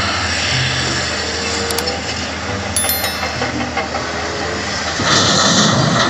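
Diesel engines of a wheel loader and a Volvo A45G articulated dump truck running steadily, with a couple of sharp metallic clinks. About five seconds in, rocks from the loader bucket tumble into the hauler's steel dump body and the sound gets louder.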